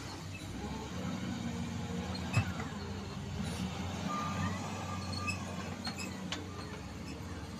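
Excavator diesel engine running steadily, with a few sharp knocks, the loudest about two and a half seconds in, and a short steady tone about four seconds in.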